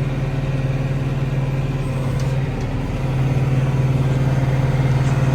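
Tractor engine running steadily while the round baler lets a finished, net-wrapped bale out; about three seconds in the engine gets louder. A couple of faint clicks are heard a little earlier.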